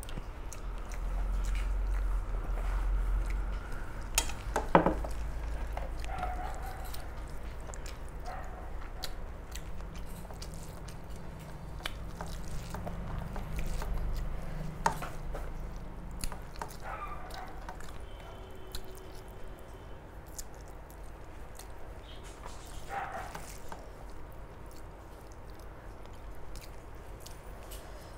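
Close chewing and mouth sounds of a person eating rice with dal and fish. Scattered light clicks run through it, with one sharper click about five seconds in.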